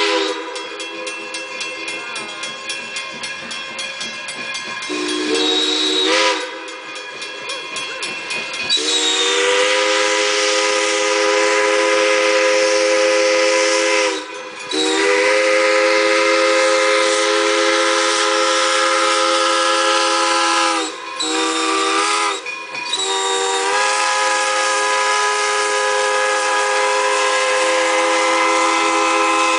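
Steam locomotive's chime whistle, Wilmington & Western 0-6-0 #58, sounding a series of blasts as it approaches a road crossing: softer, wavering whistling at first, then two long blasts, a short one and a final long one, the standard grade-crossing signal.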